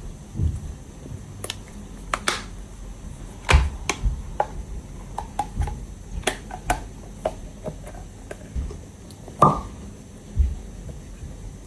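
Irregular sharp clicks and small pops as a cast bunny container is worked free of its mould, with two louder pops, about three and a half and nine and a half seconds in.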